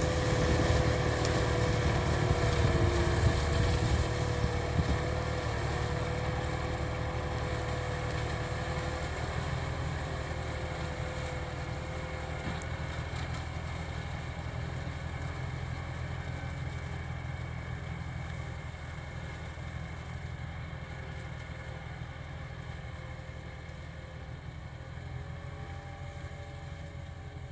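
Kubota M4073 tractor's four-cylinder diesel engine running steadily while ploughing, with a thin whine over the engine note, growing gradually fainter.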